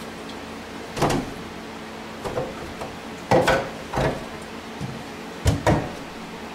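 A series of about six knocks and clunks, a pair near the end, as containers and tools are handled and set down on a cluttered workbench, over a steady low hum.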